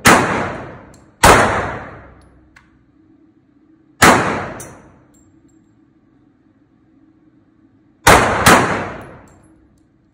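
Semi-automatic pistol firing five single shots, each ringing out in the echo of an indoor range: one right at the start, one about a second later, one about four seconds in, then two in quick succession near the end.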